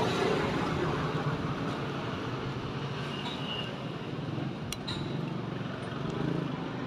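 Steady street traffic noise, with two light clinks of a metal spoon against the soup bowl about two-thirds of the way in.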